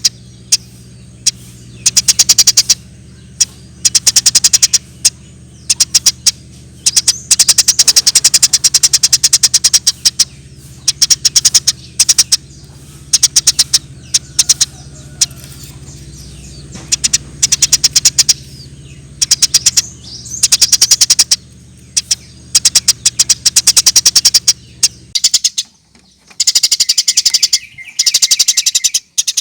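Eurasian tree sparrow chattering in rapid-fire bursts of fast, high chirps, each burst lasting about a second, repeated many times over a steady low hum. Near the end the hum drops out and the chattering continues with a lower trill.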